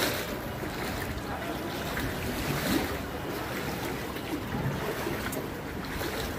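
Steady rush of moving water with wind buffeting the microphone.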